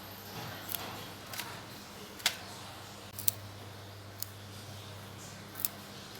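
About six short, sharp clicks and knocks of objects being handled and set down, the loudest a little over two seconds in, over a faint steady low hum.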